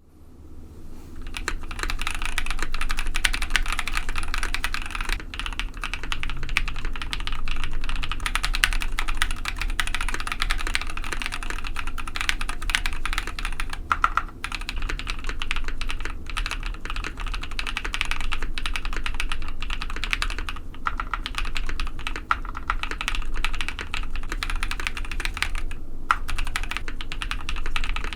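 Steady fast typing on a KBD67 Lite mechanical keyboard with Novelkeys Cream linear switches, polycarbonate plate and PBT keycaps: a dense run of key clacks, fading in over the first second, with a few short pauses.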